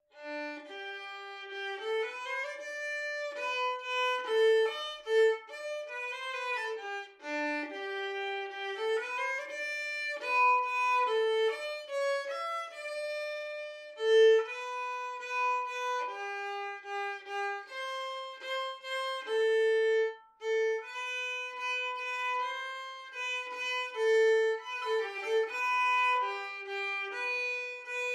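Background music: a solo violin playing a single melodic line of held and shorter notes.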